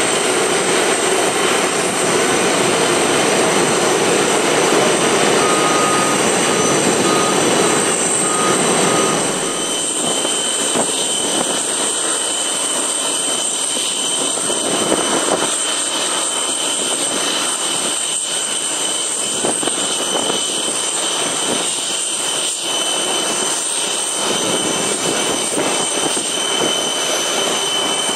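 Boeing 747-400 jet engines running, a steady noise with a high turbine whine over it. A short series of beeps sounds in the first part, and about nine seconds in the sound shifts to a slightly quieter, rougher engine noise.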